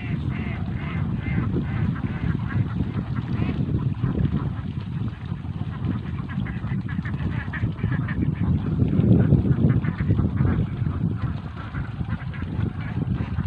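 A flock of domestic ducks quacking and calling over one another, over a constant low rumble.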